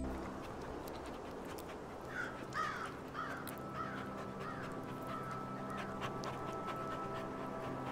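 Dog panting, with a run of about eight short, high calls a couple of seconds in that fade away one after another.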